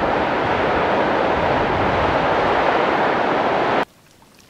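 Waterfall on the Yellowstone River giving a loud, steady rush of falling water, which cuts off abruptly near the end.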